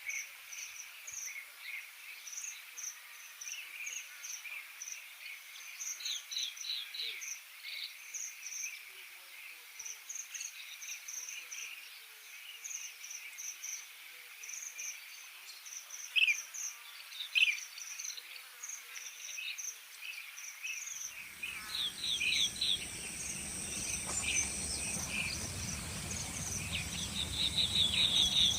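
Natural ambience of insects and birds: repeated short, high chirps and trills, with two louder sharp calls about two-thirds of the way through. From about 21 seconds a low background rumble joins and grows louder.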